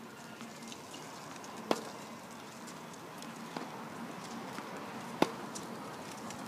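Tennis ball hit back and forth in a rally: a sharp pop about two seconds in, a fainter one near the middle, and another sharp pop a little after five seconds.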